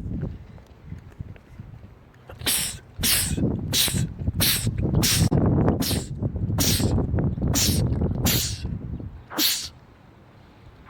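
A man sneezing about ten times in quick succession, one short sharp sneeze every second or less, starting about two seconds in.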